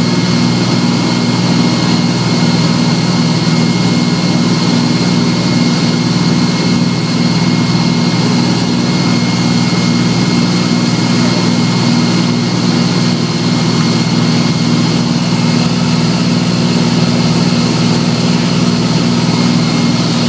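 Engine running steadily at an even pitch: a loud low drone with a thin, high, steady whine over it.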